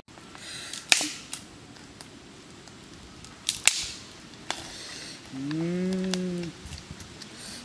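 Open wood fire crackling with several sharp pops and brief hisses. Near the end comes a single drawn-out animal call, about a second long, that rises then falls in pitch.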